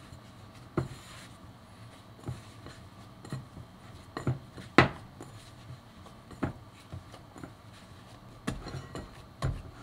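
Bread dough being kneaded by hand in a glass mixing bowl: irregular knocks and thumps as the hands and dough hit the glass, with the sharpest knock about five seconds in.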